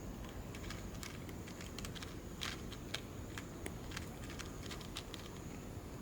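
Cat chewing crunchy food: a run of small, irregular crunches and clicks, a little louder about halfway through.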